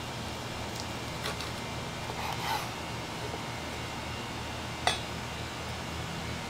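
Cleaver and metal skewer tapping and clinking lightly while slicing cooked goat offal on a wooden cutting board: a few scattered clicks, the sharpest just before five seconds in, over a steady low background hum.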